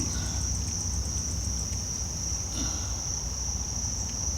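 Steady high-pitched chorus of insects, crickets or similar, over a low steady rumble.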